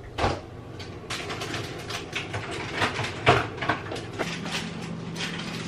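Refrigerator door opened with a knock, then irregular clatter and knocking as items are moved about on the fridge shelves while someone reaches in for packaged meat, over a steady low hum.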